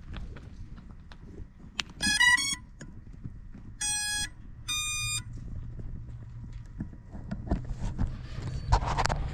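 FPV drone's motors beeping their electronic startup tune: a quick rising run of tones, then a lower and a higher beep, the ESC signal that the quad is powered and ready. Footsteps and handling knocks sound underneath, with a louder knock near the end.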